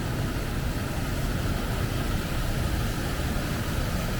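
Steady rush of fast-flowing water from a river and waterfalls, a loud, even noise with no let-up.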